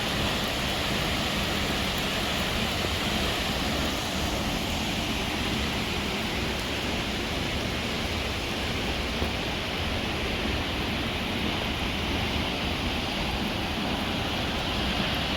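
A 24-metre waterfall pouring steadily, a constant even rush of falling water.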